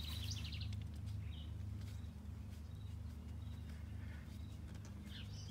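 Faint outdoor background: a steady low hum with a couple of short, faint bird chirps, one about a second in and one near the end.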